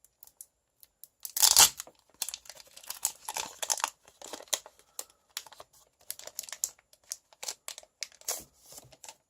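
A Pokémon TCG booster pack's foil wrapper being torn open, with one loud rip about a second and a half in, followed by repeated crinkling and crackling of the wrapper as it is worked open.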